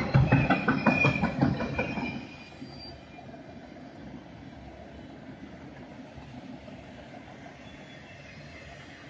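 Freight train's autorack cars rolling past: loud, rapid clacking of steel wheels on the rails for about the first two seconds, then a much quieter, steady rolling noise as the cars go by.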